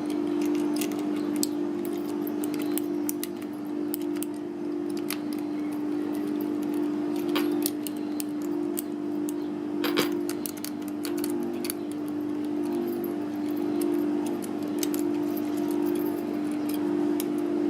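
Lock pick being rocked in the keyway of a Blackspur padlock: scattered light metallic clicks and scrapes of the pick against the pins, over a steady low hum. The lock does not open, as its deep-cut key bitting resists rocking.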